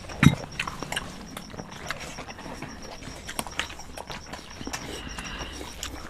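Eating from metal plates: scattered light clicks and taps of hands, rice and plates, with one louder knock a moment in.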